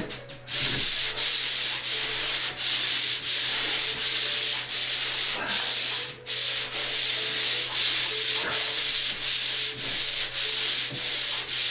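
Swivel-head drywall pole sander rasping back and forth over a patched, skim-coated sheetrock ceiling. The strokes come steadily, about two a second, with a brief break around six seconds in.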